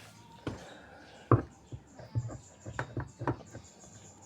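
Irregular knocks and clicks of a washing machine's pulsator being fitted onto its new gearbox, the sharpest about a second in.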